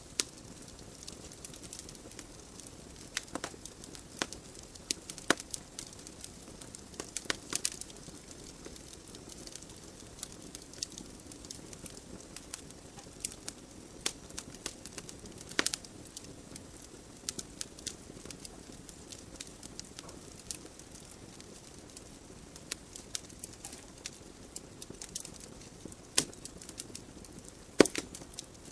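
Wood fire crackling in a fireplace: burning logs give off frequent, irregular sharp pops and snaps over a steady soft hiss of flames. One of the loudest pops comes near the end.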